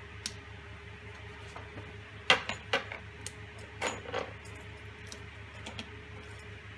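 Steel washers and nuts clinking on a threaded rod as a nut is fitted by hand: a handful of short metallic clicks over a couple of seconds, over a faint steady hum.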